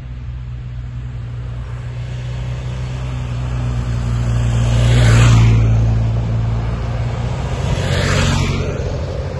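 Motorcycles riding one after another through a bend, their engines running steadily. The sound swells as each bike passes close, loudest about five seconds in and again near eight seconds.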